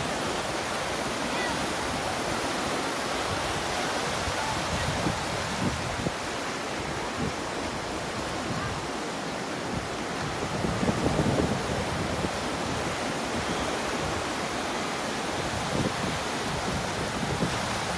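Ocean surf breaking and washing up the beach: a steady rush of waves that swells louder about halfway through.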